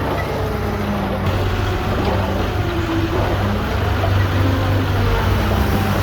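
Diesel engine of heavy earthmoving equipment running steadily with a deep drone, with fainter higher tones that come and go over it.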